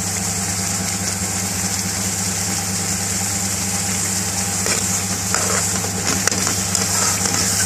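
Steady low hum and high hiss from the kitchen's gas burner and equipment, with a few faint pops as the chicken pasanda's cream sauce boils hard in an aluminium pan.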